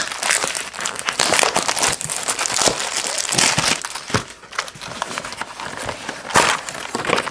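Plastic shrink-wrap crinkling and tearing as it is stripped off a cardboard trading-card hobby box. A louder rip comes about six seconds in, as the box's cardboard lid is pulled open.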